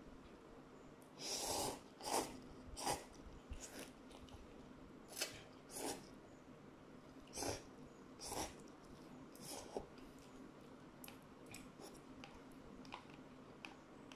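A person slurping instant cup noodles off chopsticks and chewing: a run of short slurps over the first ten seconds or so, then quieter chewing clicks.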